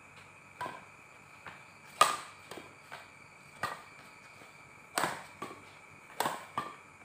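Badminton rackets striking a shuttlecock back and forth in a rally: a string of sharp smacks about every second or so, the loudest about two and five seconds in.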